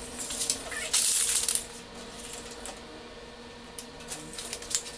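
Steel tape measure rattling and clicking as its blade is pulled out and handled along a wooden beam, loudest in a short scraping burst about a second in, with lighter clicks near the end.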